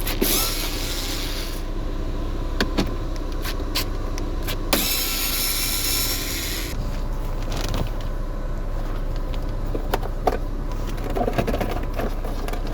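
Plastic dashboard trim on a Ford Taurus being pried open and handled: scattered clicks and knocks, with two rasping scrapes of about two seconds each, one at the start and one about five seconds in. A steady low hum runs underneath.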